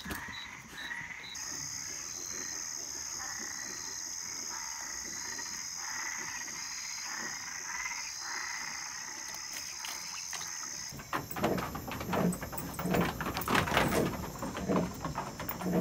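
Frogs croaking over and over above a steady high-pitched trill. Near the end this gives way to a louder run of irregular knocks and clicks.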